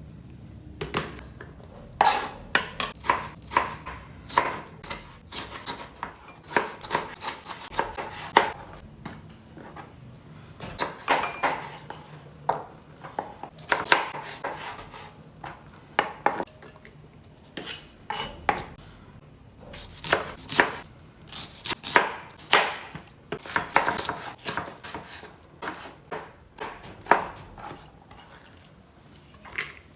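Kitchen clatter: irregular sharp knocks and clinks of utensils and dishes, some of them ringing briefly, coming in quick clusters with short pauses between.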